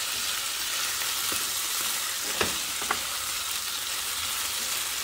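Beef and vegetables sizzling steadily in a frying pan as they are stir-fried, with a few short knocks of a wooden spatula against the pan.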